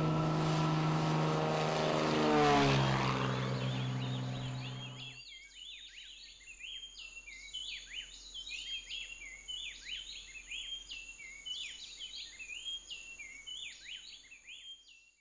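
A single-engine turboprop airplane taking off and passing close by, a steady propeller drone whose pitch drops about two and a half seconds in as it goes past. It cuts off abruptly about five seconds in, leaving faint repeated chirping calls over a steady high whine.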